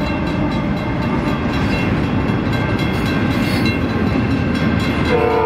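Double-stack container train rolling past on the rails: a steady rumble and rattle of the well cars, with a crossing bell ringing faintly underneath. A train horn starts sounding near the end.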